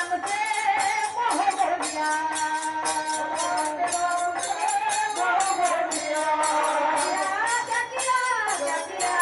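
Devotional kirtan singing: a woman's voice holding long, gliding notes through a microphone, over metallic hand percussion keeping a steady beat of about three strokes a second.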